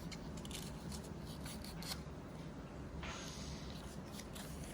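Sheet of A4 paper being handled and folded: faint rustles and crinkles, with a longer sliding rustle about three seconds in, over a low steady hum.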